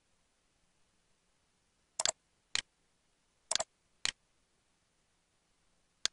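Computer mouse clicking: sharp, short clicks. A quick double click comes about two seconds in, with a single click half a second later. The same pattern repeats a second later, and one more click falls near the end.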